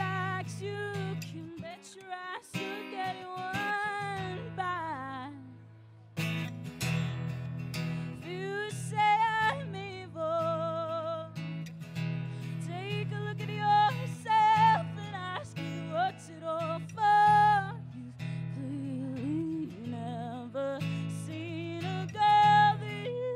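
Live solo singing with strummed acoustic guitar accompaniment, the voice holding some notes with vibrato.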